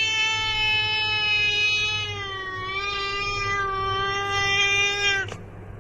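A cat's long, drawn-out yowl held on one steady pitch. It dips slightly partway through and cuts off abruptly near the end.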